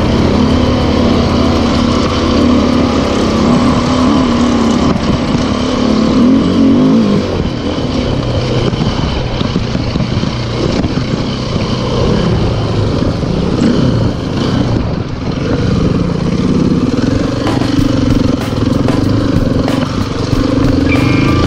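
Enduro motorcycle engine running under way, its revs rising and falling again and again.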